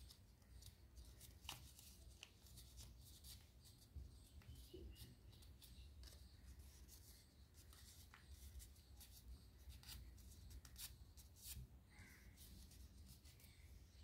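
Faint crinkling of a sheet of origami paper being folded and pressed into shape by hand: many short, irregular crackles over a low steady hum.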